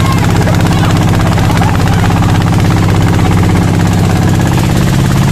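A motorboat's engine running steadily as the boat travels along the river, with a fast, even beat.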